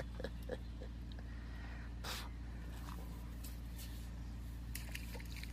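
Faint handling noises from a landing net and its pole: a few light ticks at first and a short rustle about two seconds in, over a steady low hum.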